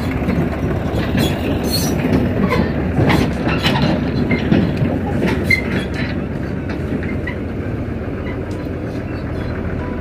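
Diesel tractor and excavator engines running, with irregular metallic clanks and knocks through the first six seconds, then a steadier engine drone.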